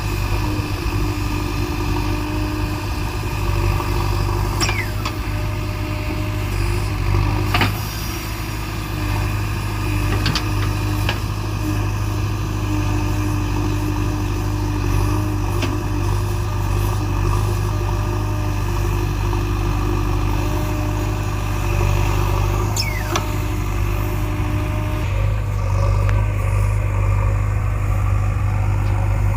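JCB 3DX backhoe loader's diesel engine running steadily, with held whining tones that shift and drop out as the hydraulics work. A few short sharp squeaks or clanks break in at intervals.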